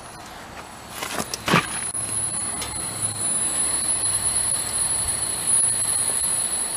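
Small 12-volt DC blower on a wood gasifier running with a steady high whine. A rushing noise grows louder from about two seconds in as the gasifier draws air in, and a couple of knocks come about a second in.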